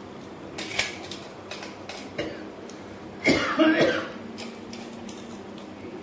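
A person coughs in one loud burst about three seconds in, with a few small clicks and knocks before it.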